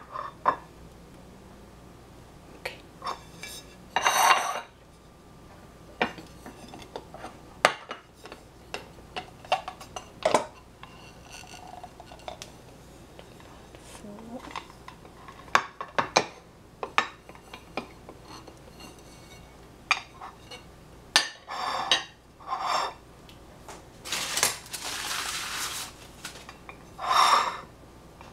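Ceramic plates clinking and knocking on a tiled counter and against each other as they are picked up and set down, with a stainless steel ring mould moved onto a plate. The sound is a long run of scattered sharp clinks, with a few longer scrapes near the start and near the end.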